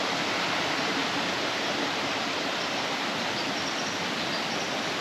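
Steady rushing of a creek's water cascading over rocks, an even, unbroken hiss.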